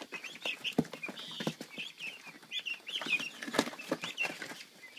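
A crowded brood of four-week-old guinea fowl keets in a wire brooder cage, chirping in many short high calls, with a few sharp taps and scuffles among them.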